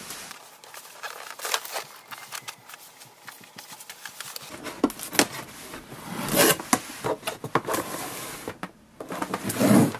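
A cardboard printer box being handled and turned on a wooden table, giving scrapes, knocks and crackles of cardboard. The sounds are sparse at first and louder from about halfway, and near the end scissors are worked at the packing tape.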